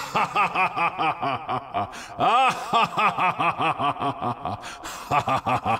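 A person laughing in a long cackle of quick ha-ha syllables, about four or five a second, each rising and falling in pitch, with one longer drawn-out syllable about halfway through.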